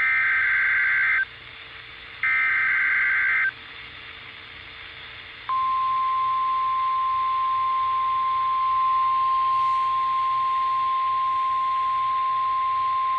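NOAA Weather Radio weekly test alert heard through a La Crosse 810-805 weather radio. First come the last two of the three buzzy SAME data header bursts, each just over a second long, over radio hiss. Then, about five and a half seconds in, the steady 1050 Hz warning alarm tone starts and holds.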